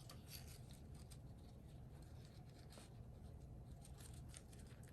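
Faint rustling and light scattered clicks of paper being handled and shaped into a tag.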